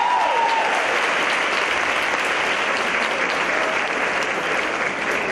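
Audience applauding steadily after a speech.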